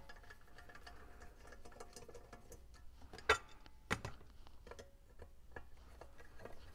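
Phillips screwdriver turning out screws from the aluminium end caps of a car amplifier: a faint run of small ticks and clicks, with two sharper knocks about three and a half and four seconds in.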